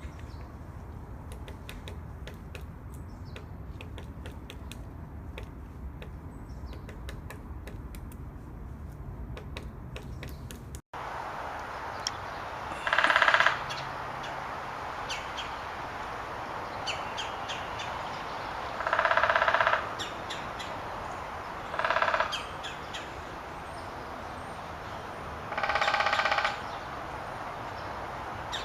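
Woodpecker sounds: irregular sharp tapping for about the first ten seconds, then, after a cut, four loud harsh bursts about a second long, several seconds apart.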